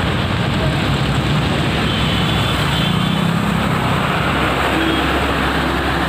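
Road traffic on a flooded road: vehicle engines running under a steady, loud rush of noise.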